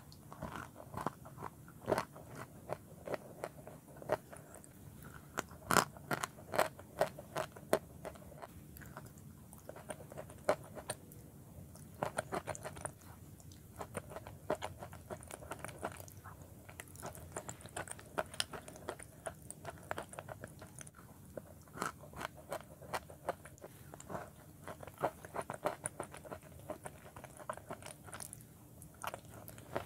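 A person biting and chewing chalk in a wet clay paste, eaten by the spoonful: irregular sharp crunches and clicks, some in quick runs, over softer wet chewing.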